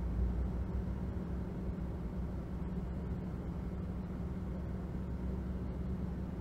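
Car engine running at a steady speed, a low, even rumble used as a driving sound effect.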